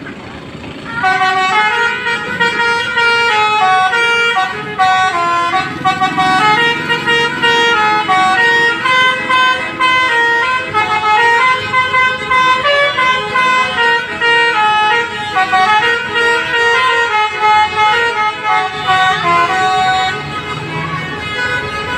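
Bus 'telolet' horn, a Basuri multi-tone air horn, playing a rapid melody of stepping tones. It starts about a second in and plays without a break.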